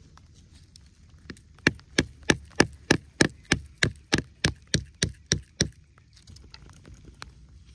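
A wooden baton knocking on the back of a knife blade, batoning it down into the end of a wooden bow stick to split it: a steady run of about fourteen sharp knocks, roughly three a second, starting about a second in and stopping a little before the end.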